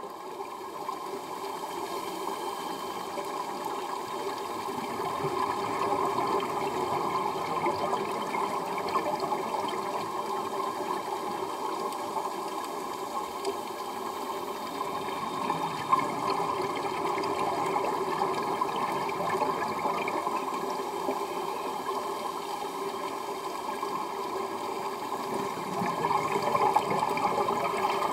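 Underwater ambience from scuba divers: a steady bubbling rush of exhaled regulator bubbles, heard through the water, swelling a little now and then.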